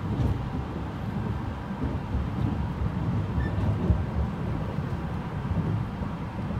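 Cabin noise inside an E653-series electric express train running at speed: a steady low rumble of the wheels on the rails, with one brief knock about four seconds in.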